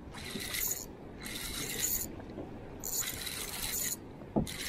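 Spinning reel being cranked, its gears and spool whirring in spurts of just under a second with short pauses, as line is wound in on a hooked fish.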